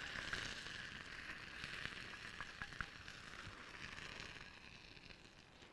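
Oil sizzling in a hot ceramic baking dish just out of the oven: a steady hiss with a few faint crackles, fading slowly.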